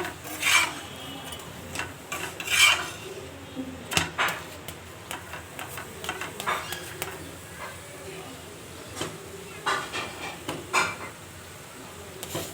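Dishes and metal utensils being handled: irregular scrapes and clinks on plates and pots, with a few louder clatters, about half a second in, a little after two seconds, around four seconds, and twice near ten seconds.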